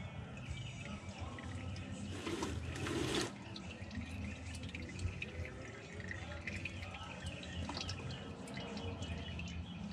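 Used engine oil draining from the car's oil pan into a plastic drain pan, trickling and dripping with many small scattered ticks. A louder noise lasting about a second comes about two seconds in.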